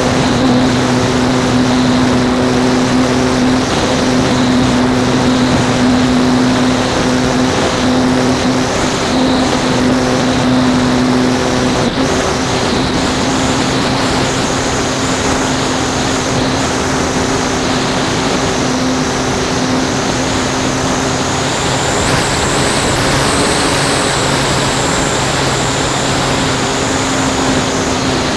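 RC plane's motor and propeller heard from a camera mounted on the plane, a steady hum with a high whine over rushing air. The whine climbs a little about two-thirds of the way through, then eases near the end.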